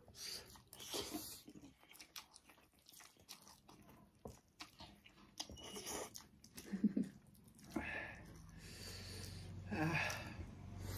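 Chewing and eating sounds of spicy instant noodles: many small clicks and bites. In the second half come a few short breathy vocal sounds, reactions to the chilli heat.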